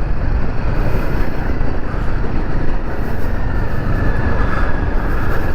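Wind rushing over the camera microphone on a moving motorcycle, a steady dense rumble that covers the Royal Enfield Himalayan 450's single-cylinder engine running at speed.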